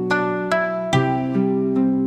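Calm instrumental music of plucked-string notes, about one every 0.4 seconds, each ringing on over sustained lower tones.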